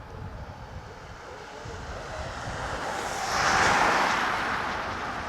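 A passing vehicle: a rush of noise that swells to a peak about three and a half seconds in, then fades.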